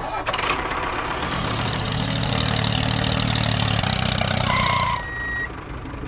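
Tractor engine running steadily, its low hum growing heavier about a second and a half in. Near the end a two-tone reversing beeper sounds, alternating a low and a high beep.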